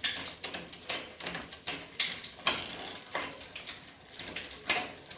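Mountain bike drivetrain being run through the gears: the trigger shifter clicks and the chain jumps across the rear cogs as the wheel is turned, giving a string of sharp metallic clicks and clatters. The new gear cable is tensioned and the derailleur shifts through all the gears.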